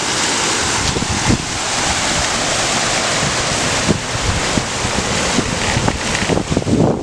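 Garden waterfall feature: water pouring and splashing over stone boulders in a steady rush, with some wind rumbling on the microphone.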